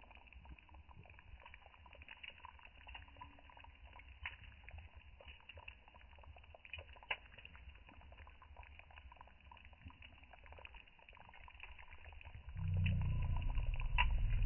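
Beans simmering in a clay pot over an open wood fire, with scattered small pops and crackles over a low rumble. A louder low rumble comes in about two seconds before the end.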